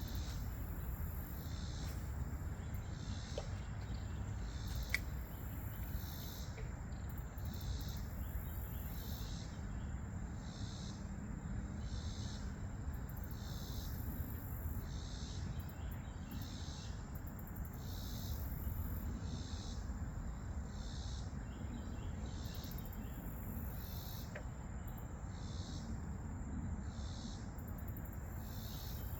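Insects calling: a high pulsing buzz repeating about once a second over a steady thin high whine, with a low steady rumble underneath.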